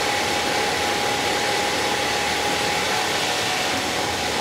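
Petrol pump dispensing fuel through the nozzle into a car's tank: a steady rushing hiss with a constant whine.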